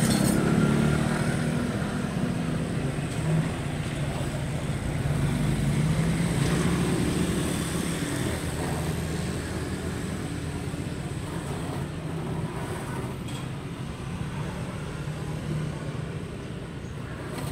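Steady low rumble of street traffic with a wavering engine hum, growing slowly quieter.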